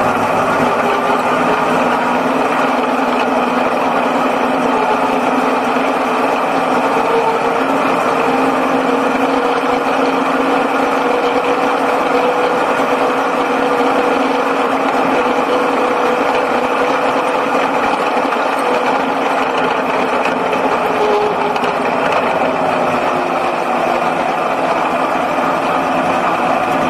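Speedway Sixes race car's six-cylinder engine, heard from inside the cockpit, running hard at racing speed, its pitch dipping and rising gently as the car goes round the dirt oval.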